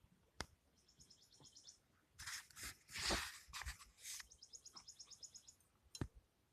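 Faint handling noises as wire connectors are pushed onto the motorcycle horn's terminals: a sharp click, a couple of seconds of rustling, and another click near the end. A bird chirps in rapid high trills in the background, about a second in and again later.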